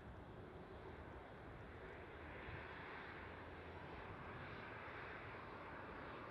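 Distant jet airliner engines: a steady rush that grows louder from about two seconds in.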